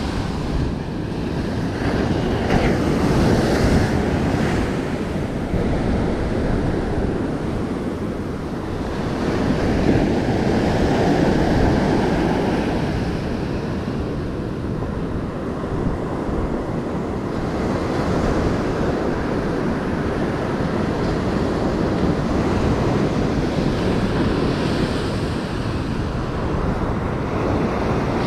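Surf breaking and washing up on a sandy beach, swelling and easing as the waves come in, with wind buffeting the microphone.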